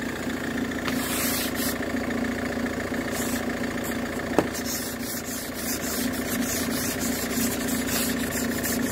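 Hand-held ice scraper scraping frost off a van's windscreen in repeated rasping strokes, coming quicker in the second half, over the steady hum of an idling engine. A single sharp click about four seconds in.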